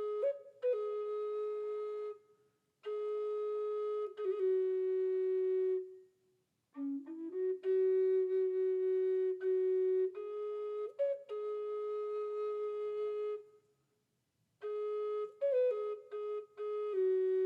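Outro music: a single wind instrument, flute-like, playing a slow melody of held notes in phrases broken by short pauses.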